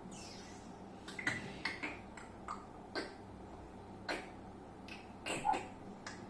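A dozen or so light, sharp clicks and taps at irregular intervals, from hands working the device that ScratchJr is being edited on.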